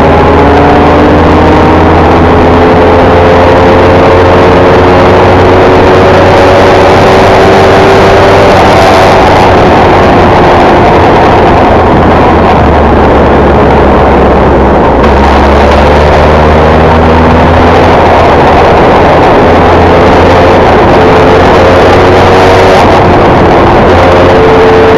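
Formula 1600 race car engine at racing speed, its pitch repeatedly climbing as it accelerates and dropping back at gear changes, under a loud steady rush of noise.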